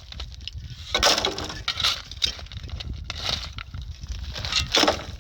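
Irregular knocks and clattering of hard objects being handled and set down, several sharp clinks among them.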